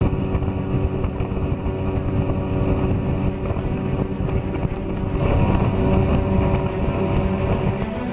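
Motorboat engine running steadily, with wind rumbling on the microphone.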